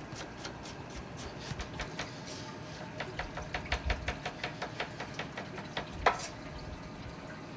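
Chef's knife chopping an onion on a plastic cutting board: a run of quick, sharp knife strikes, coming about five a second in the middle, with one louder knock near the end.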